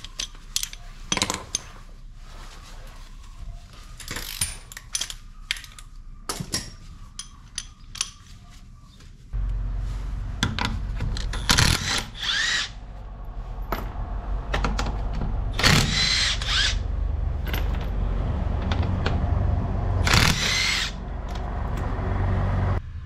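Hand tools clicking and knocking while a shock absorber is bolted back into a car's rear suspension. About nine seconds in a steady low hum starts, and a power tool runs in three short bursts.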